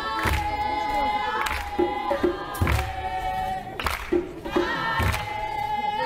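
A group of voices chanting together in a traditional dance song, held notes wavering up and down, with a heavy thump keeping the beat about every second and a quarter.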